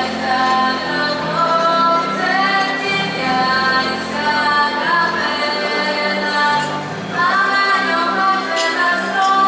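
Female voices singing a Polish Christmas carol (kolęda) with instrumental accompaniment, held sung notes over a steady low backing.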